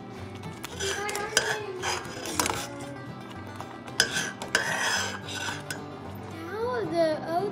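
A metal spoon stirring wet oatmeal in a stainless steel saucepan, scraping and clinking against the pan several times.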